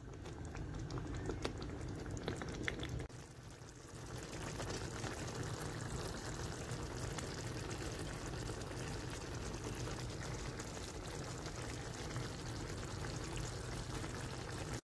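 Thick chickpea-and-potato curry gravy bubbling at a simmer in a pan, a steady crackly bubbling and spluttering that breaks briefly about three seconds in and cuts off suddenly near the end.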